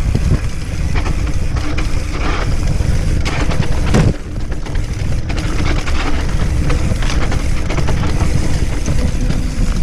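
Mountain bike descending a steep, rough trail: a steady rumble of tyres and wind on the microphone, broken by frequent knocks and rattles from the bike over the ground.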